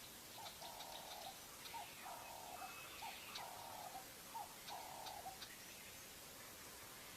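Faint, repeated rasping calls from an animal, about five longer notes with short ones in between, over a light hiss.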